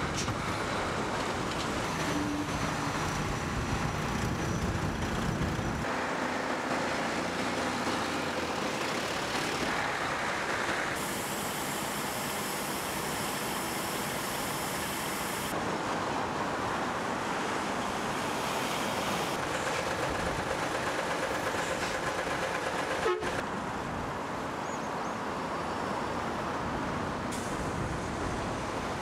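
Road traffic and vehicle noise, a steady rush with faint engine hum, that changes abruptly several times as clips are cut together.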